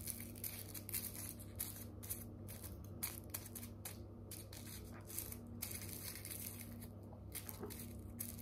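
Fingertips crumbling and picking at dry cannabis herb: a faint, irregular run of short crackly rustles over a steady low hum.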